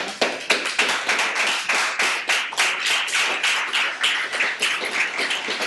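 Applause from a small audience: many hands clapping at once in a dense, uneven patter, starting abruptly.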